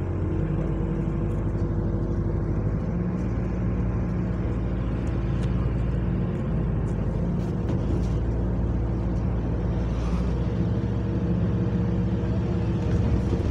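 Diesel engine of an Alexander Dennis Enviro400 hybrid double-decker bus, heard from the upper deck, running with a steady low drone as the bus drives. The drone shifts slightly in pitch a few times.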